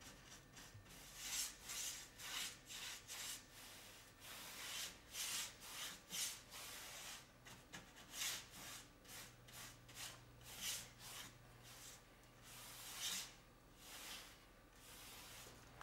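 Faint, repeated swishing of a round paintbrush's bristles stroking linseed oil paint onto a tongue-and-groove wooden panel, about two strokes a second.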